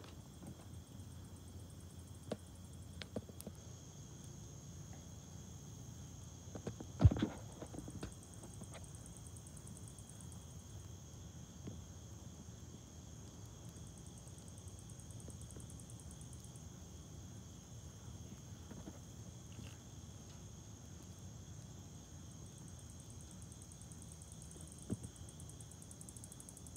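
Campfire burning with a low rumble and a few sharp pops, the loudest a short cluster about seven seconds in. Night insects chirr steadily behind it.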